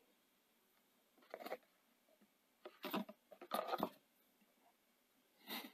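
Soft handling noises: about four brief rustles and clicks as a metal video-head disc is lifted out of its plastic case and handled over paper.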